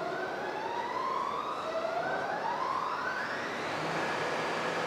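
Electric traction motors of a subway train whining as a train accelerates, the whine climbing in pitch in two rising glides, the second starting about a second and a half in; a steady low hum joins near the end.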